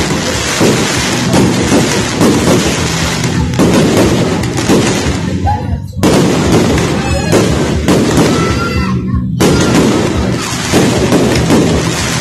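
Aerial fireworks going off in a rapid, continuous barrage of bangs and crackling, with music under it.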